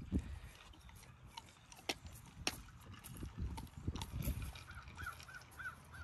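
Backyard outdoor sound with a low rumble of wind on the microphone and a few sharp clicks or knocks. Near the end there is a quick run of about five short chirps.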